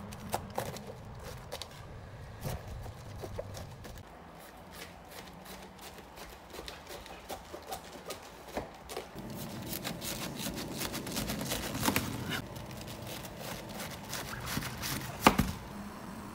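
Chef's knife cutting through a firm head of green cabbage on a cutting board: crisp crunches and knocks of the blade on the board, denser crackling from about nine seconds in, and one sharp knock near the end.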